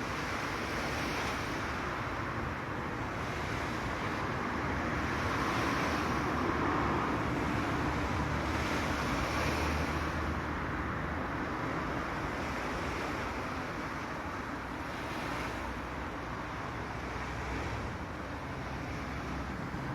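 Sea waves washing in a steady rush that swells a little about halfway through, with wind rumbling on the microphone.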